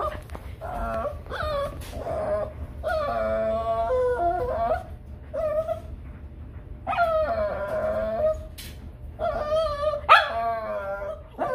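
A Shih Tzu whining and howling in a series of long, wavering, high-pitched cries with short breaks between them. It is crying to get at a cat outside the window.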